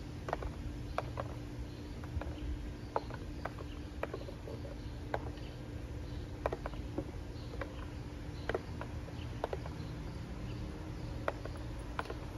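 Irregular sharp clicks and taps, a dozen or more, from treats dropped into open cardboard boxes and a dog nosing through them, over a steady low background hum.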